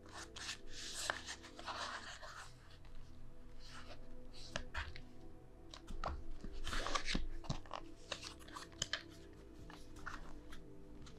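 Clear plastic clamshell trays holding RAM sticks, and a foam insert, being handled and pulled out of the box: rustling, scraping and sharp plastic clicks, heaviest about six to seven seconds in, over soft background music.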